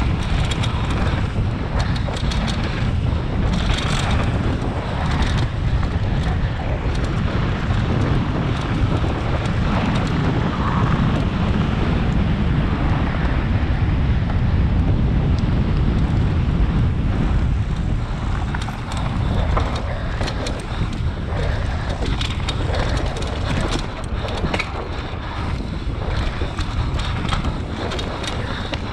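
Enduro motorcycle ridden through a special stage, heard from a rider-mounted camera: the engine running continuously under load, with wind buffeting the microphone and frequent short knocks and clatters.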